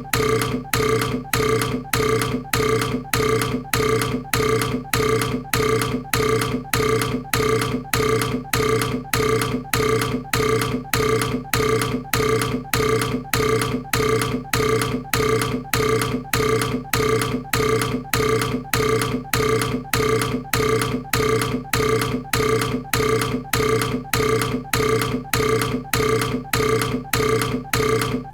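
A short burp repeated over and over at an even pace of about two a second, each one alike.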